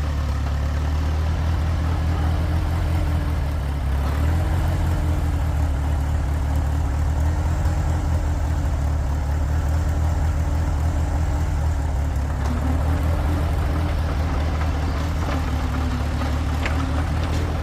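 Engine of a 1952 Oliver OC3 crawler running steadily with a deep rumble, its pitch drifting slightly up and down as it works.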